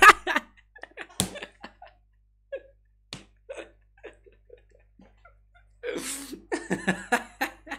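A man stifling laughter in short, soft breathy snorts, with a sharp click about a second in, then breaking into open laughter in several pulses near the end.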